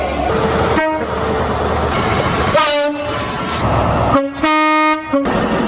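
Train horn sounding over the running noise of a train: short blasts about one and three seconds in, then a longer blast of about a second about four seconds in.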